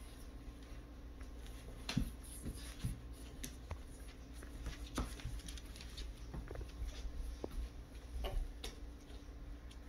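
A boxer puppy and a small dog play-wrestling: scattered light thumps, scuffles and paw clicks on a rug and wooden floor, a few louder knocks among them.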